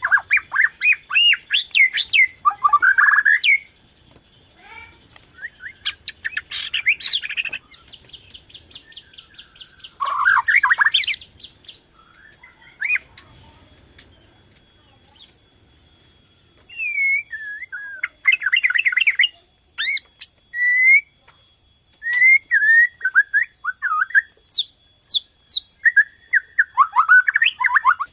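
Borneo murai batu (shama) singing: loud, varied phrases of gliding whistles and rapid trills. A buzzy rattle comes about eight seconds in, and there is a pause of a few seconds in the middle before the song resumes.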